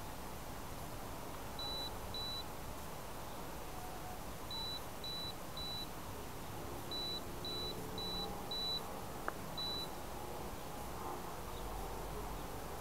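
Short high-pitched electronic beeps at one steady pitch, in irregular groups of two, then three, then four, then one, from the downed FPV quadcopter's beeper. A single sharp click sounds about nine seconds in.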